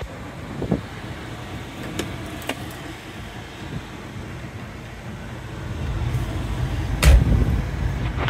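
Plastic clicks of a pickup's centre console lid being opened, then a loud knock about seven seconds in as it is shut. A low rumble comes up shortly before the knock.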